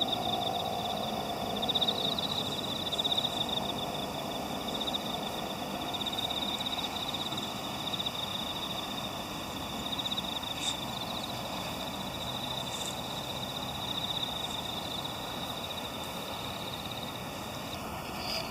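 Chorus of insects trilling, a steady high-pitched rapid pulsing that carries on without a break.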